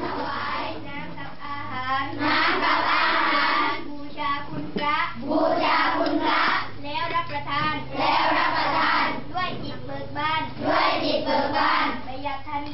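A group of schoolchildren's voices chanting together in unison, in phrases of one to two seconds with short breaks between them.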